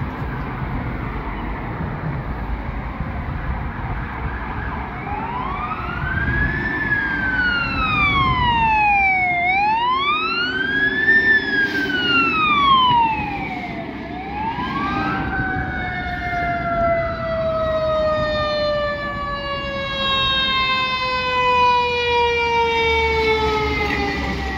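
Fire apparatus sirens over traffic noise. About five seconds in, a wail starts rising and falling roughly every four seconds. From a little past halfway, a lower siren tone glides slowly downward in pitch as the trucks approach and pass.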